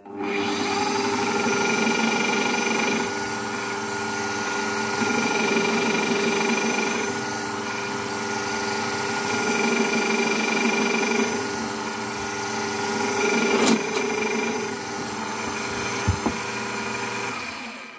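Drill press running with a split-point twist drill boring through an acrylic glass sheet, a steady motor note whose sound shifts every couple of seconds as the bit cuts. It cuts off shortly before the end.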